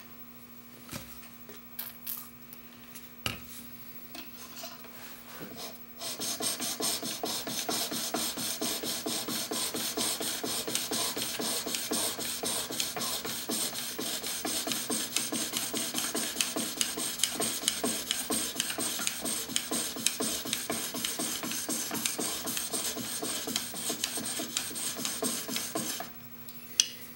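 A steel chisel in a wheeled honing jig being stroked rapidly back and forth on a fine DMT diamond sharpening stone: a steady, gritty scraping rasp of steel on the diamond plate. A few light clicks come first as the jig is set on the plate; the strokes start about six seconds in and stop about a second before the end.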